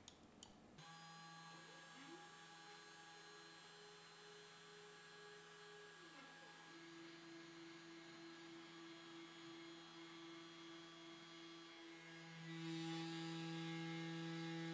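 T8 desktop CNC engraver starting its job: the small spindle motor starts about a second in and runs with a steady hum, while a stepper-motor whine rises in pitch, holds for a few seconds and falls away as an axis moves. Near the end the machine gets louder.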